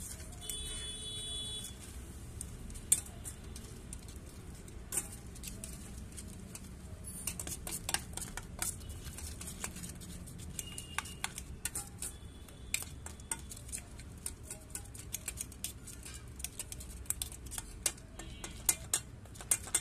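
Steel spoon beating gram-flour (besan) batter in a metal bowl: rapid clicks and taps of the spoon against the bowl. They come only now and then at first, then thick and fast from about a third of the way in.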